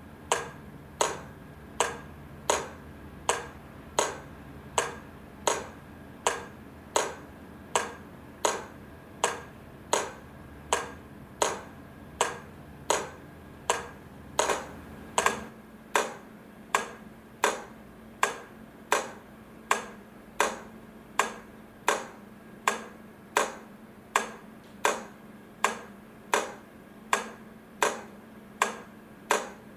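Railway level crossing warning equipment sounding a steady, even series of sharp ringing strikes, about four every three seconds. A low hum underneath stops about halfway through.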